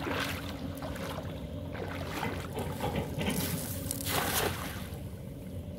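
A hand-thrown cast net (jaki jal) being swung and flung over shallow river water, with water sloshing around the wading fisherman's legs; about four seconds in, a brief rushing splash as the net spreads and lands on the water. A steady low hum runs underneath.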